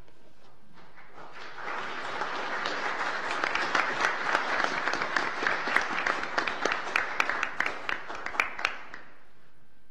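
A congregation applauding: the clapping starts about a second in, swells, and dies away shortly before the end.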